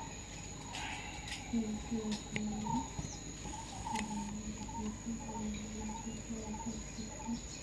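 Steady high-pitched insect drone, with low voices coming and going in the background and a few faint sharp clicks.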